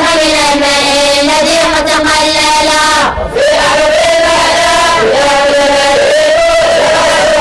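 Many students chanting a memorized Arabic text (matn) together in unison, a melodic group recitation on long held notes. It breaks off briefly for a breath about three seconds in, then carries on.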